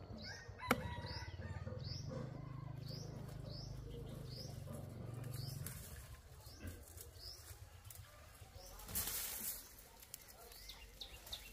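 Farmyard sounds: a bird gives short rising chirps about twice a second over a low rumble that stops about six seconds in. A sharp click comes just under a second in, and a brief rustle around nine seconds, as the mesh netting is dragged.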